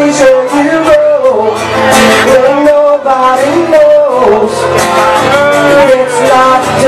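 Live pub music: a man singing a held, flowing melody to acoustic guitar, loud, over the noise of a packed crowd.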